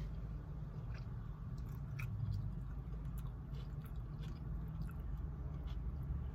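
A person chewing and biting food, with irregular short mouth clicks and smacks.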